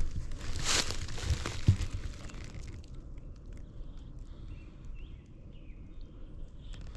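Wind rumbling on the microphone, with rustling and handling noise in the first two seconds, then faint bird chirps in the background.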